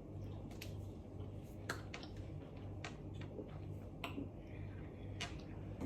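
Faint scattered clicks and ticks of someone eating a pie with cutlery, about six over a few seconds, over a low steady hum.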